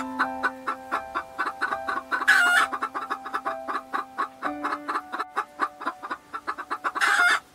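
Chickens clucking in a quick run of short notes, with two brief loud squawks. Background music with held chords plays underneath.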